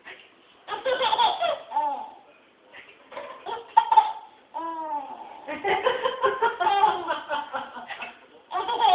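A baby laughing in repeated bursts of high-pitched giggles, with an adult woman laughing along, densest in the second half.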